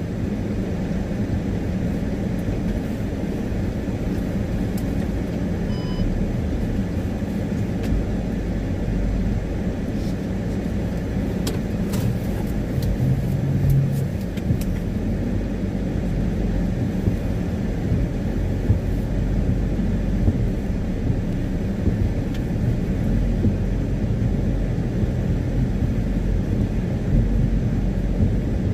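A car driving slowly on a wet road, heard from inside the cabin: a steady low rumble of engine and tyres, with a few faint clicks near the middle.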